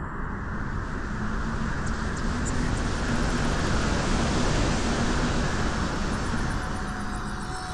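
Steady rushing ambient rumble with a faint low hum, swelling gently toward the middle and easing a little near the end.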